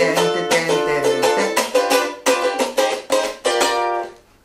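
Ukulele strummed fast through a chord progression, with sharp, muted 'cutting' strokes and syncopated accents mixed into the rhythm. The chords ring out and stop about four seconds in.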